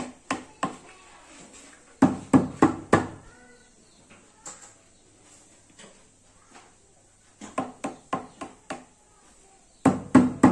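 Quick sharp taps on a hard object, in rapid clusters of three to six strikes with a short ring after each: one cluster at the start, one about two seconds in, one about seven and a half seconds in, and one near the end.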